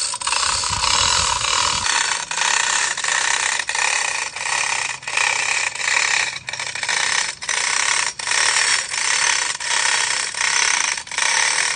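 Manual chain hoist being worked by hand: the chain rattling through the hoist and the pawl clicking in a steady run of repeated pulls, about one every half second or so.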